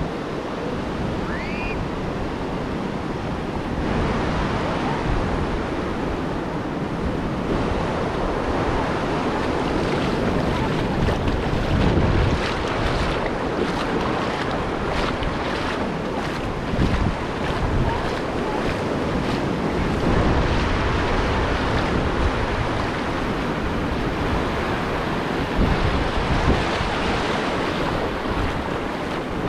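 Ocean surf breaking and washing on a sandy beach, a steady rush that swells now and then, with wind rumbling on the microphone.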